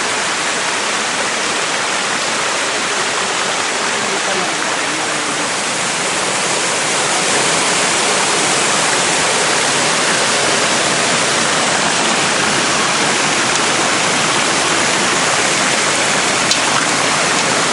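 Small waterfall pouring over rocks into a pool: a steady rush of water that grows a little louder about seven seconds in.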